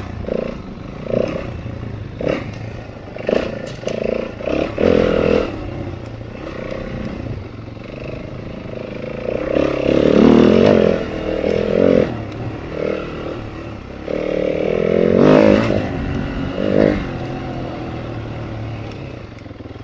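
Single-cylinder four-stroke dirt bike engine being ridden off-road, the throttle blipped in short bursts through the first five seconds, then opened for longer pulls that rise and fall about ten and fifteen seconds in.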